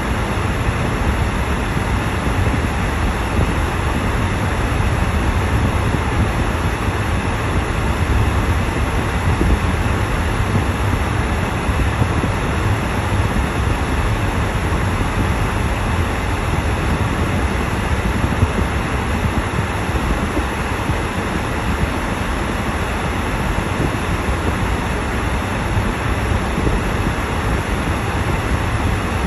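Steady in-cabin noise of a car driving: a low, even rumble from the tyres and engine.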